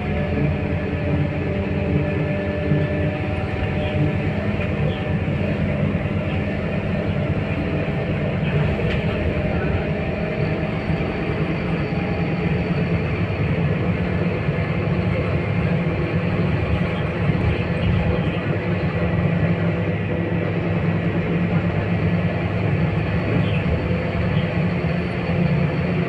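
Inside a Scania K230UB city bus under way: its rear-mounted nine-litre five-cylinder diesel running steadily, heard as a low rumble with a few held engine tones over road noise.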